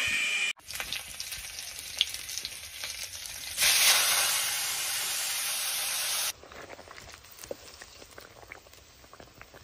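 Pork sizzling and frying in a hot wok, with crackles and small scrapes of stirring. About three and a half seconds in, water poured into the wok sets off a loud, steady hiss. The hiss cuts off after nearly three seconds, and the wok settles back to a quieter crackling sizzle.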